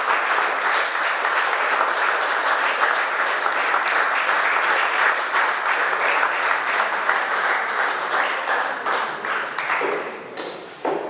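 Audience applauding: a dense, steady patter of many hands clapping that dies away near the end.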